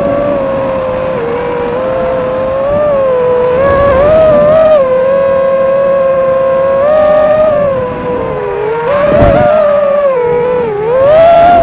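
FPV racing drone's electric motors and propellers whining, the pitch rising and falling constantly with the throttle.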